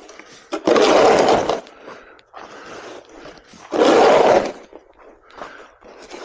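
Snow shovel scraping along a snow-covered walkway, two long pushes about three seconds apart with softer scrapes between them.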